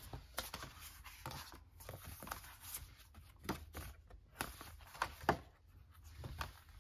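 Paper and card being handled: a photocard set and its paper sleeve are taken out of an album case and the photobook's glossy pages are turned, giving a string of short rustles and light taps.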